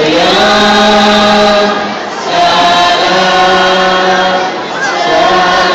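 A crowd of voices singing a slow chant together, holding long notes in phrases that break about every two seconds.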